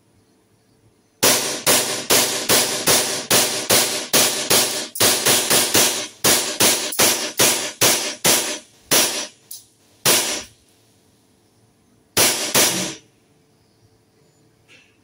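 Army Armament Combat Master 6mm gas blowback airsoft pistol firing a rapid string of about two dozen shots, two to three a second, each a sharp crack. After a short pause, two more shots follow.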